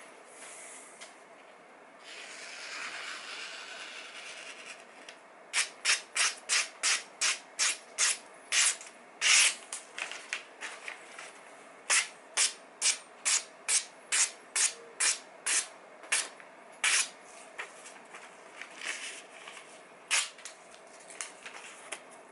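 Freshly sharpened kitchen knife slicing through a sheet of catalogue paper in quick, crisp strokes, about two a second, with a few scattered cuts near the end. This is a paper test of the edge's sharpness.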